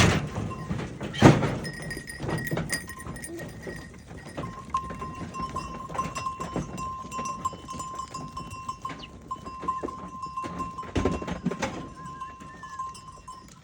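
Goats bleating in a farm pen, with several loud knocks, the loudest about a second in. A steady high-pitched tone runs through the second half.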